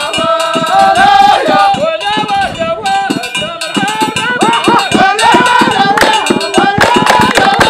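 Hamadcha troupe's devotional folk music: a high, wavering melody line over fast, dense beats on hand drums and percussion.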